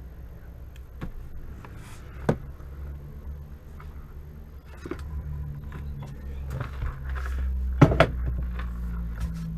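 Scattered clicks and knocks of parts and tools being handled, with the loudest pair of knocks near the end, over a steady low hum.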